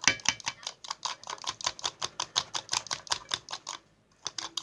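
Fast, even clicking of a hand soap and salt slime mixture being stirred in a container, about seven clicks a second, with a brief stop near the end.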